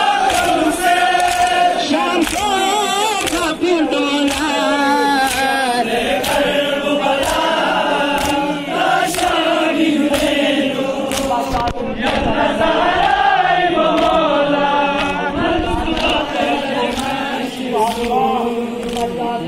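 Crowd of men chanting an Ashura mourning lament together, with repeated sharp slaps of hands beating on chests in time.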